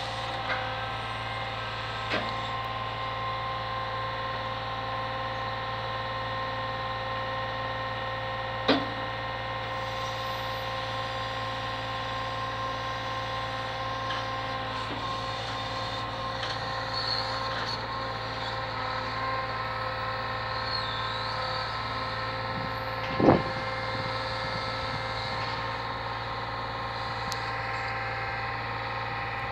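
Brick delivery truck's engine running steadily to power its lorry-mounted crane, a constant drone with a hum. A few sharp clunks from the crane and its brick grab break through, the loudest about three-quarters of the way through.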